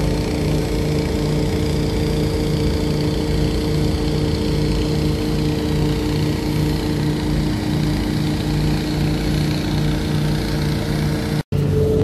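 A steady engine drone with a low throb pulsing about twice a second, cutting out for an instant near the end.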